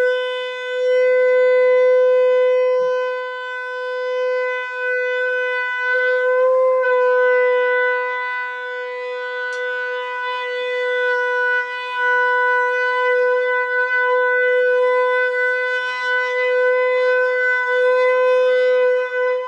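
A long twisted shofar blown in one long, steady held note lasting the whole twenty seconds, with a brief waver in pitch about six or seven seconds in; the note cuts off at the very end.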